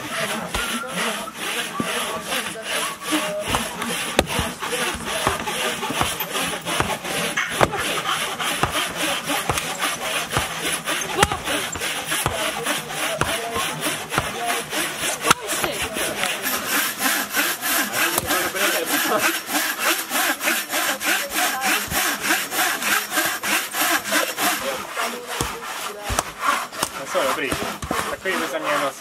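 Hand saw cutting through wood in quick, regular back-and-forth strokes.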